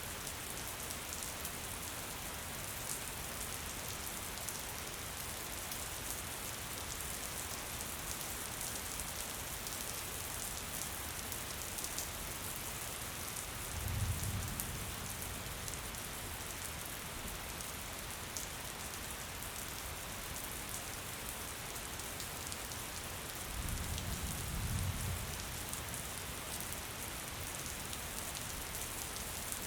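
Steady gentle rain falling, an even hiss with a dense patter of drops. Two brief low rumbles rise out of it, about halfway through and again about four-fifths of the way through.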